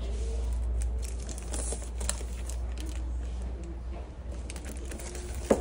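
Clear plastic sleeves on art prints crinkling and rustling as they are handled and flipped through, with scattered light clicks and one sharper tap near the end, over a low steady rumble.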